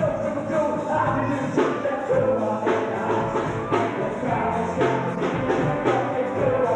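Live rap band with drum kit, electric guitars and keyboard playing a steady beat, strong drum hits about once a second, on a muffled old camcorder recording.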